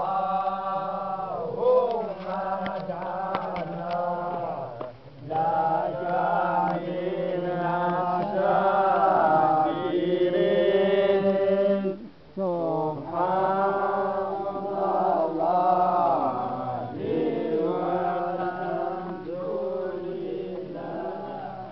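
A group of men chanting a religious recitation together in unison, melodic phrases repeated with brief pauses about five and twelve seconds in.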